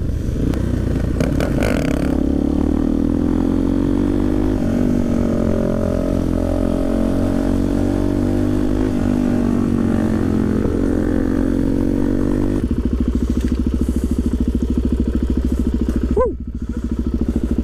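Single-cylinder supermoto motorcycle engine running at steady road speed, its revs rising and falling a little. About 12 to 13 seconds in it drops to a slower, pulsing beat as the bike slows.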